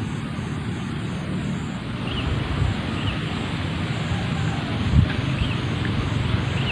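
A kite's sendaren, the bowed hummer string on an Indonesian kite, droning steadily in the wind, with a single low thump about five seconds in.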